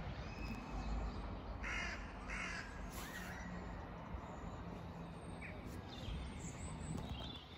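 A crow cawing twice in quick succession about two seconds in, over the low rumble of a train far down the line.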